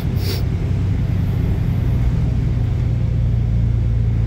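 Transperth bus's engine and drivetrain heard from inside the cabin while it drives: a steady low hum that builds slightly. A short hiss comes right at the start.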